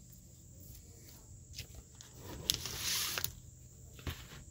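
Plastic comic sleeves and boards being handled: a short crinkling rustle with a few sharp clicks about two and a half seconds in, and another click near the end. A faint steady high buzz underneath.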